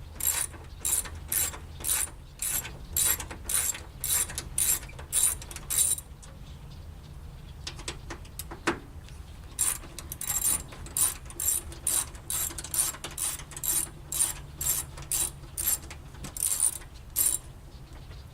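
Socket ratchet clicking in short bursts, about two strokes a second, as 10 mm bolts are undone. The ratcheting stops for a few seconds midway, then starts again for a second run.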